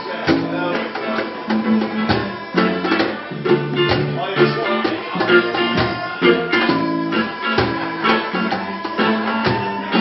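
Live folk band playing an instrumental passage: a small accordion holding sustained notes over strummed guitar, with a steady beat slapped on a cajón.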